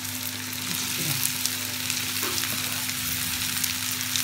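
Onions frying in hot ghee sizzle and crackle in a pan as diced raw potatoes are tipped in from a cutting board, with a steady low hum underneath.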